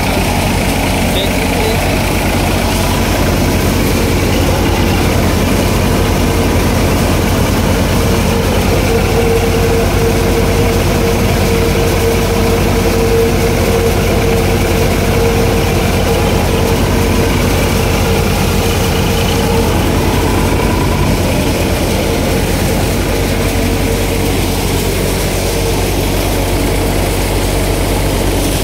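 Sonalika 50 RX tractor's diesel engine running steadily at constant speed, driving a thresher, with a steady hum that grows brighter through the middle.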